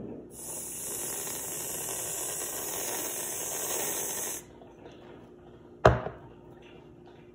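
Aerosol can of whipped cream spraying, a steady hiss with a spluttering edge for about four seconds that stops abruptly. About a second and a half later comes a single sharp knock, the loudest sound here.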